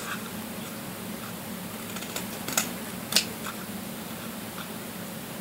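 Scissors snipping slits into a tube: a few sharp clicks, the loudest about three seconds in, over a low steady hum.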